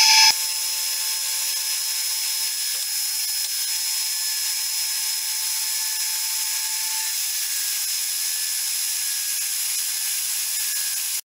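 Milling machine with a face mill taking a light finishing skim cut across a metal L-profile: a steady, high-pitched cutting hiss with a few steady whining tones. It cuts off suddenly near the end.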